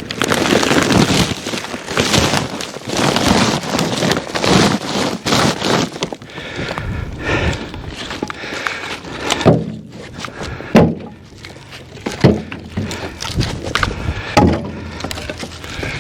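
Crunching and scraping for the first several seconds, then a series of separate hard wooden knocks: split oak firewood being dug out of packed frozen snow and handled.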